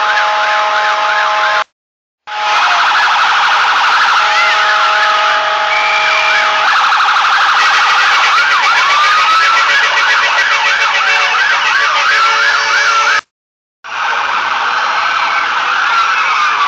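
Several vehicle sirens wailing and yelping over one another, with long steady horn-like tones underneath. The sound drops out completely twice for about half a second, about two seconds in and about thirteen seconds in.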